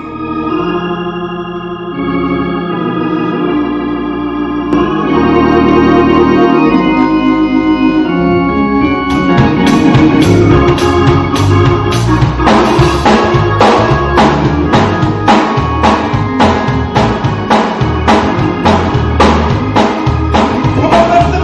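Church praise band: an organ playing held chords, then a drum kit comes in about nine seconds in with a steady beat as the band starts the opening worship song.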